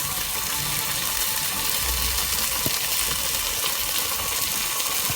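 Chopped vegetables sizzling in hot oil in a kadai: a steady frying hiss.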